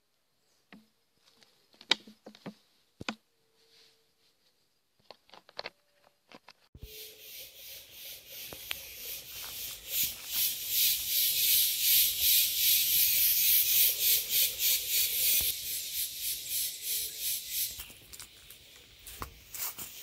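A few faint clicks and rustles over near silence, then about seven seconds in a loud, high insect drone starts suddenly, pulsing very fast, and fades away a few seconds before the end.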